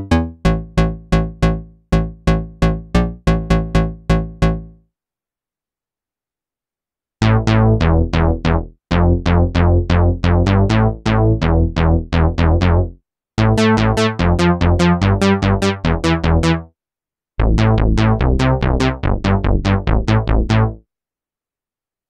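Cherry Audio Chroma software synthesizer, an emulation of the Rhodes Chroma analog synth, playing bass presets as short, plucky notes that die away quickly in fast repeated patterns. The notes stop for about two seconds near the middle, then a longer bass line follows in three phrases.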